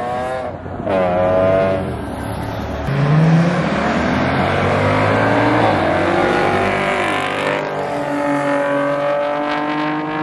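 Car engines accelerating hard: one revs up with a brief dip at a gear change about half a second in, then climbs again. A second car's engine then rises steadily in pitch as it pulls away, shifting again near the end.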